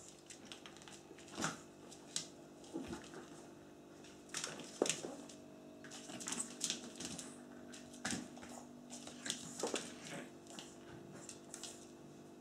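Pekingese puppy scrabbling about on a vinyl floor in play: irregular claw clicks, scuffs and soft knocks, the loudest a few seconds apart, over a faint steady hum.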